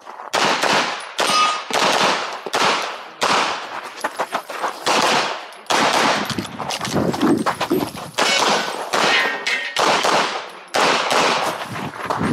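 Rapid 9mm pistol shots from a CZ Shadow 2, fired mostly in quick pairs, with a brief break about five and a half seconds in.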